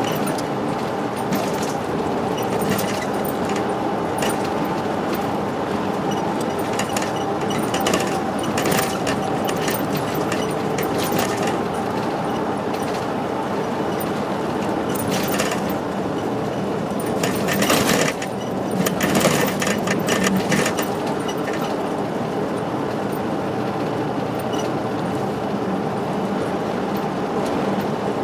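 Route bus cruising, heard from inside the cabin: a steady engine and road drone with scattered rattles and clicks from the bodywork, heaviest a little past the middle. The footage runs at double speed, so the drone sounds higher and the rattles come quicker than in life.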